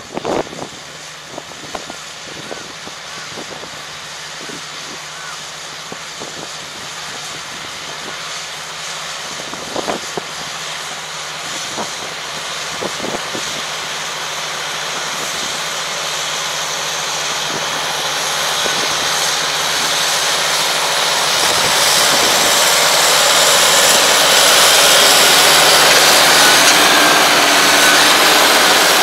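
Semi-crawler farm tractor with a rotary tiller working the field, its engine running steadily. It draws nearer and grows steadily louder, with a rising hiss from the tracks and tiller, loudest near the end.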